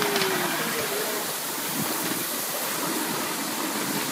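Miniature steam train running along the track, heard from an open passenger car: a steady rushing noise without a clear beat.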